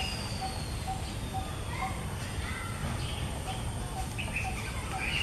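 Birds calling in the trees: one repeats a short, even note about twice a second while others give brief chirps, over a low, steady background rumble.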